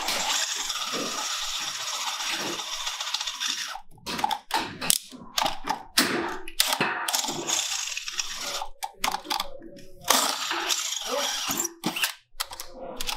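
Handheld electric drill boring a hole into the body of a TL-15 burglary-rated safe. It runs steadily for about four seconds, then in short stop-start bursts, with another steady run about ten seconds in.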